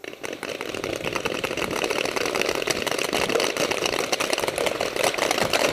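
Many paintball markers firing rapidly at once, a dense, continuous crackle of shots.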